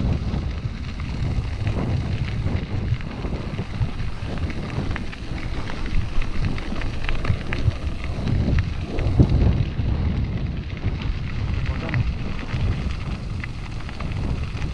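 Wind buffeting the microphone of a camera on a moving bicycle, a heavy fluctuating rumble.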